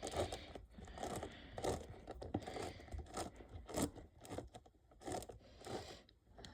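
Plastic layers of a magnetic mini 7x7 speed cube (DianSheng) being turned by hand: an irregular run of short clicking, scraping turns, about one or two a second.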